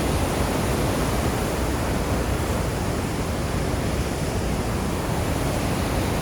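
Steady, even rushing of a large waterfall on the Yellowstone River, heard close by, with most of its weight in the low end.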